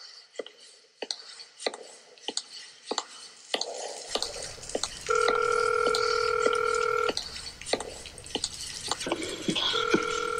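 Electronic soundscape: irregular water drips, with a low hum joining about four seconds in. A steady two-note telephone ringing tone sounds for about two seconds, pauses, and starts again near the end.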